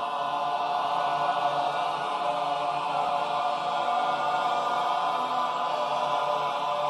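Chant-like vocal music: voices holding long, steady notes together, with no breaks.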